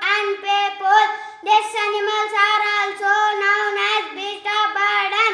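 Only a young boy's voice, reciting his seminar talk without a break in a high, even-pitched sing-song.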